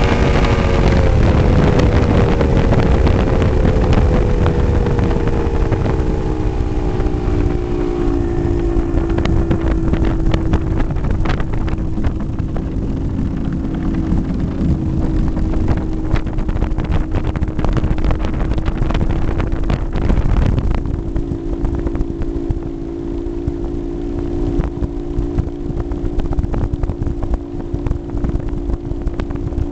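Mercury 300XS two-stroke V6 outboard on a tunnel-hull speedboat running under way, with rushing water and wind. Its pitch falls over the first several seconds as the throttle comes back, then holds steady at a lower engine speed.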